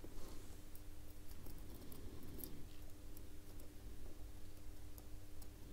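Faint, sparse small metallic clicks of tweezers and a thin metal cover plate being handled and positioned on a quartz watch movement, over a faint steady hum.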